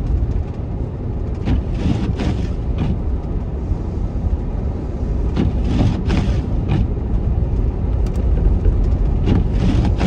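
Steady low rumble of a car driving slowly on a snow-covered road in a blizzard, heard inside the cabin. Windshield wiper sweeps come every few seconds.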